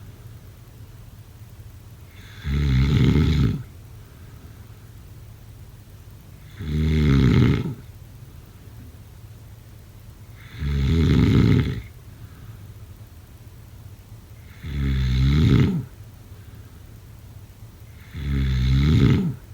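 A sleeping person snoring: five loud snores, each a little over a second long, coming about every four seconds in a steady rhythm, with only a faint low hum in between.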